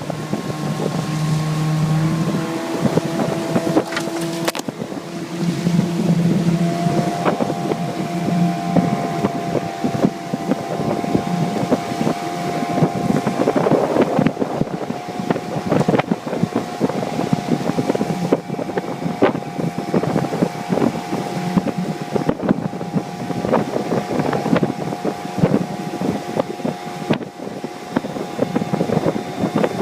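15 hp Mariner outboard motor running under way on a jon boat. Its pitch shifts during the first several seconds, then holds steady, over wind on the microphone and rushing water and hull noise.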